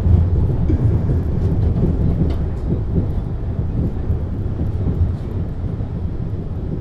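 MAN GTW 72 suspension railway car standing at a platform with a door open, giving a steady low rumble with a few faint clicks.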